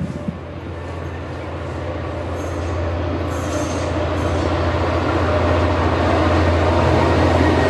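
V/Line N class diesel locomotive, its EMD two-stroke V12 droning, approaching at the head of a passenger train, with rail noise; the sound grows steadily louder as it nears.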